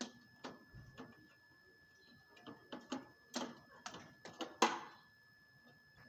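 Irregular metallic clicks and knocks of hand tools working on an air-conditioner unit while the old compressor is taken out, the loudest cluster a little past halfway. A faint steady high whine runs underneath.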